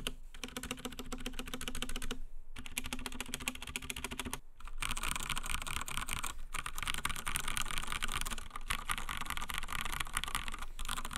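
Fast typing on an Akko 3087 v2 Silent mechanical keyboard with Akko Pink silent switches: a dense run of soft key clicks, in short takes broken by brief gaps. The reviewer says the keyboard sounds hollow because the bottom of its case is left unfilled.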